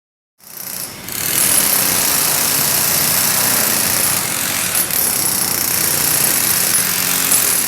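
Concrete floor milling machine cutting into a concrete slab: a loud, steady grinding noise with a faint high whine, starting about half a second in and reaching full level about a second in.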